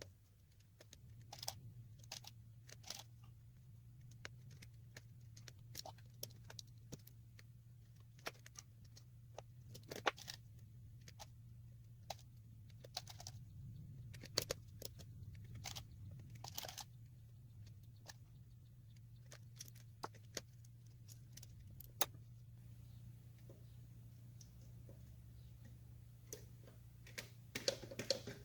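Light metallic clicks and taps at irregular intervals from a Royal No. 5 manual typewriter's mechanism being worked by hand, over a steady low hum.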